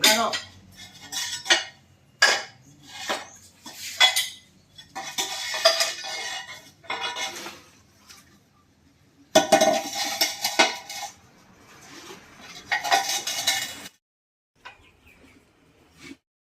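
Metal objects clinking and clanking in irregular bursts, with separate sharp knocks in the first few seconds and denser clattering runs around the middle and later.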